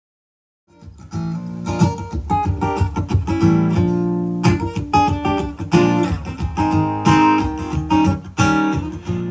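Silence, then a little under a second in a song's instrumental intro starts: guitar playing plucked and strummed notes.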